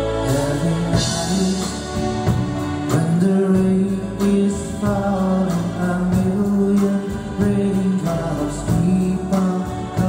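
Live pop band playing: a man sings the lead melody into a microphone over electric guitars, bass guitar, drums and keyboard.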